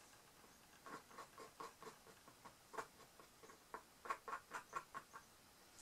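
Faint, light clicking taps of a wooden toothpick and a small wooden stick against small wooden earring bases and the cardboard box they sit on, as wet resin is pushed out to the edges. The taps come several a second, starting about a second in and busiest about four seconds in.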